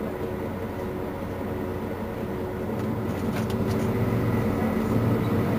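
Mercedes-Benz Citaro C2 city bus engine running steadily at standstill, growing louder about three seconds in.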